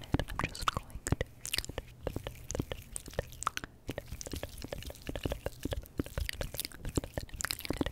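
Close-miked ASMR trigger sounds: a quick, irregular run of soft clicks and crackles right at the microphone, with no whispering.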